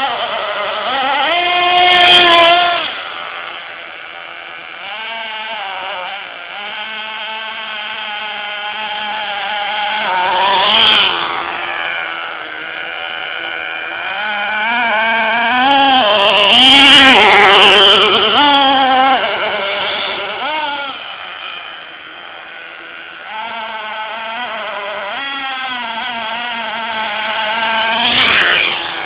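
Small nitro engine of a radio-controlled parallel-hybrid car, driving together with its electric motor, revving up and down over and over as the car speeds back and forth. It is loudest as the car passes close, about 2, 11, 17 and 28 seconds in.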